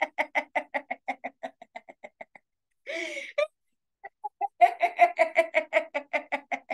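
Deliberate laughter-yoga laughter: rhythmic staccato 'eh-eh-eh' laughing at about six pulses a second, fading out. After a short break, a second run starts louder about four and a half seconds in and tapers off again.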